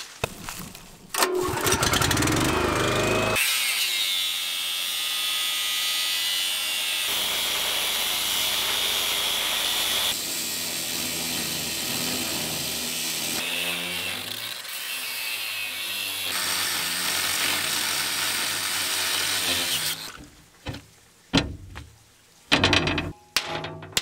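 Angle grinder with a cut-off disc cutting through the rusted steel sheet of a stuck sluice door, a loud steady whine and grind starting about a second in and running to about 20 seconds, with abrupt changes along the way. Then several separate sledgehammer blows on the steel door.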